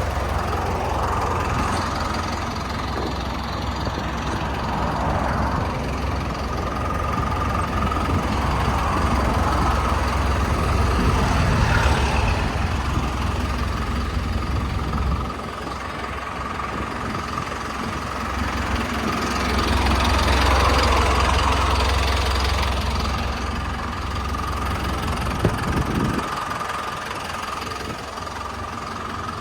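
Hyundai HD78 refrigerated truck idling: a steady low diesel rumble with a thin steady whine above it. The rumble fades for a few seconds about halfway through and again near the end, and there are a couple of short clicks.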